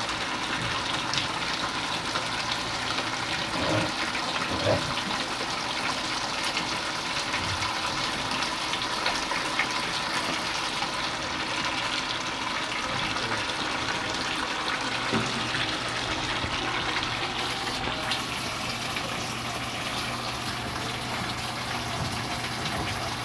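Water running and splashing steadily as Barnacle Buster descaling solution is flushed through a salt-water-cooled air-conditioning unit to dissolve limescale buildup, with a low steady hum that grows stronger about two-thirds of the way through.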